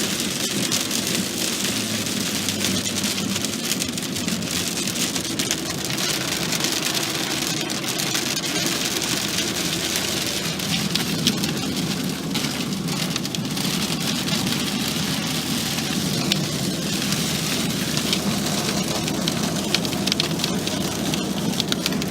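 Rain falling in a thunderstorm: a steady hiss with many small drop ticks, which come thicker twice, about halfway through and near the end.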